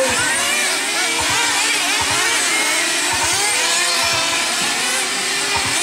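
A pack of 1/10-scale electric dirt-modified RC cars racing, with several motor whines overlapping and gliding up and down in pitch as the cars throttle on and off through the turn.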